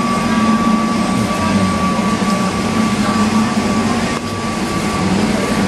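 Steady mechanical drone inside an indoor market hall, with a constant thin high tone running through it.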